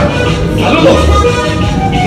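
Accordion-led cumbia music playing loud through a sound system, with a repeating bass beat and shaker-style percussion.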